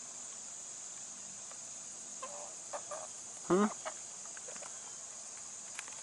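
Steady, high-pitched chirring of insects, with a few soft clucks from the chickens around two to three seconds in and one louder, brief call about three and a half seconds in.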